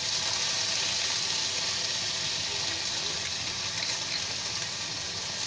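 Pork spare ribs sizzling steadily as they fry in hot oil in a wok.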